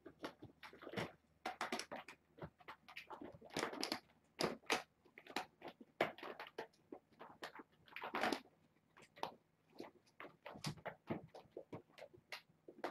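A kitten eating close to the microphone: a dense, irregular run of clicking, crackling chews with a few longer rustles.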